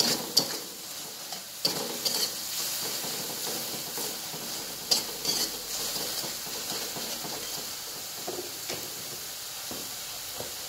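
Slotted metal spatula scraping and pressing tomato-chilli sambal around a metal wok, over a steady sizzle of frying oil. Sharp scrapes come at irregular moments, a few in the first half and a pair about five seconds in.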